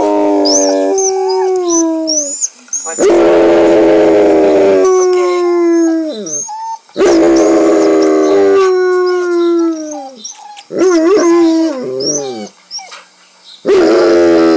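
Alaskan Malamute howling, very loud: a string of long howls, each sliding down in pitch at its end, with the loudest starting about three, seven and fourteen seconds in. The howling is set off by dogs heard on a show being watched.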